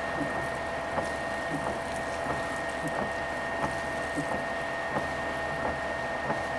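Steady vehicle cabin noise with a constant high whine and faint, irregular ticks.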